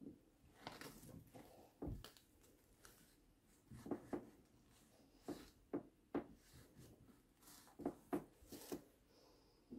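Faint, irregular clicks and light scrapes of a threading die and its T-handle wrench being worked by hand on a steel rifle barrel, cutting 1/2-28 muzzle threads.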